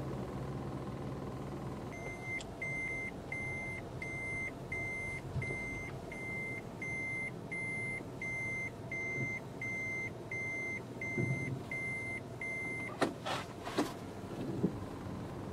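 A vehicle's electronic warning beeper sounds one steady high beep about twice a second for roughly ten seconds, then stops. A few sharp knocks follow near the end.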